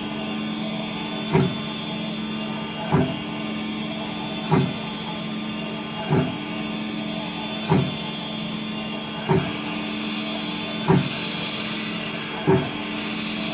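Small CNC IC grinding machine running, with a steady motor hum and a regular knock about every second and a half. From about nine seconds in, a louder high hiss joins as the spinning cutter grinds down the chip.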